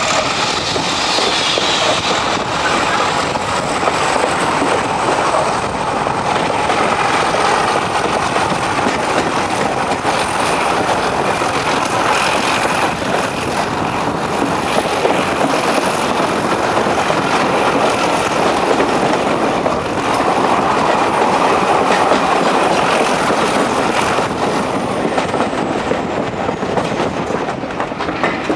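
Passenger coach running along the track, heard from an open window: a steady rumble of wheels on rail with clickety-clack over the rail joints. A thin, high wheel squeal holds through most of the run and falls away near the end.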